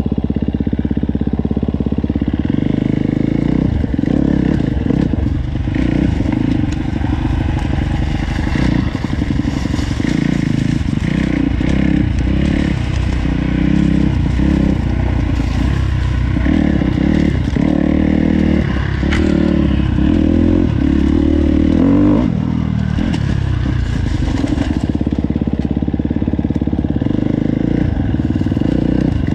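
KTM four-stroke motorcycle engine running under way, loud and continuous, its revs rising and falling.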